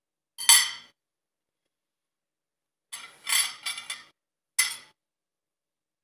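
Metal fork and knife clinking and scraping on a ceramic plate while cutting into a stuffed meat kafta: a short sharp clink about half a second in, a quick cluster of scrapes and clinks around three to four seconds, and one more clink near five seconds.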